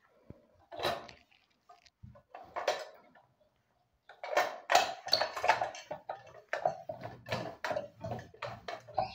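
An old charcoal iron being pushed back and forth over a cotton shirt on a table, a quick run of scraping strokes and knocks starting about four seconds in. Before that, a couple of rustles as the shirt is spread out.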